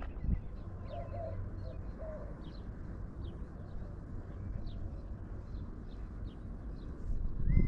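A dove cooing a short phrase of a few low notes about a second in, with small birds chirping throughout over a steady low rumble.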